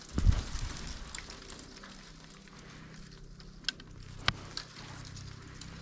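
A hand pulling and shaking a woody vine or sapling: a low thump just after the start, rustling, then two sharp twig snaps about half a second apart a little past the middle.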